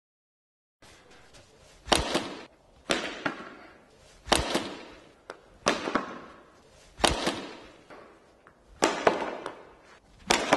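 Cricket bat striking balls as pull shots are played: seven sharp cracks, one every one to two seconds, starting after about a second of silence. Each crack echoes in the large indoor hall.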